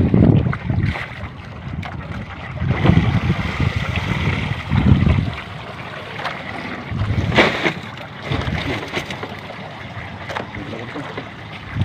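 Wind gusting on the microphone over water lapping at a small outrigger fishing boat, with a few knocks and rustles as a fishing net is hauled aboard; the clearest knock comes about two-thirds of the way through.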